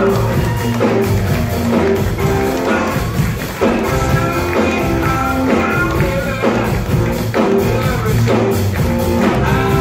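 Live rock band playing an up-tempo number, with electric guitar and a steady drum beat.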